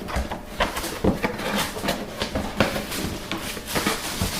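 Cardboard box being opened and its packaging handled: irregular taps, scrapes and rustling.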